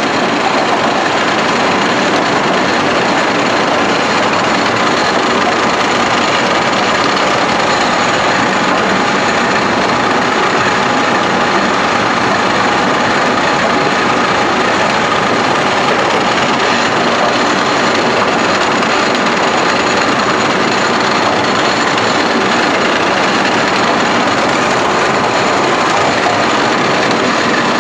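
Sweet corn cutting machine running, with circular knives stripping kernels from the ears and water spraying on the cutting head: a loud, steady, dense mechanical din with faint steady tones in it.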